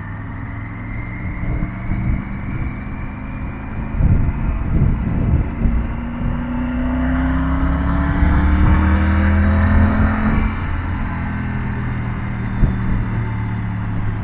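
Triumph Tiger 900's three-cylinder engine pulling as the motorcycle accelerates on the road, its pitch rising over several seconds before it settles into a steady cruise. Wind noise gusts on the microphone.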